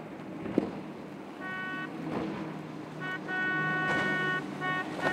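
Triple Mercury outboard engines on a Midnight Express center-console boat running at speed, with the hull slapping through the chop. A separate high pitched tone sounds in several blasts, short and long, from about a second and a half in.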